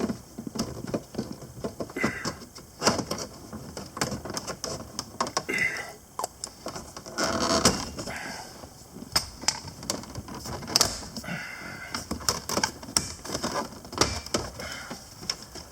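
Plastic trim tool prying the instrument cluster trim off a C6 Corvette's dashboard: scattered plastic clicks, taps and scrapes as the clips are popped, with a denser stretch of rustling and scraping a little past halfway.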